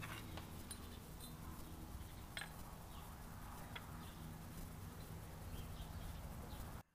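Faint steady background hiss and hum with a couple of small metallic ticks as a 4L60E servo spring is pressed down with a metal pipe to refit its snap ring. The sound cuts off suddenly near the end.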